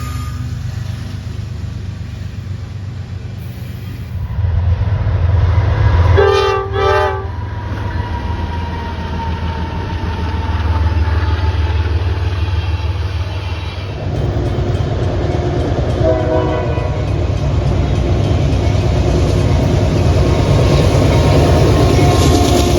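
Train horn sounding two short blasts about six seconds in, a horn salute from the crew, over the steady rumble of a passing train. A fainter short horn sounds again a little past the middle.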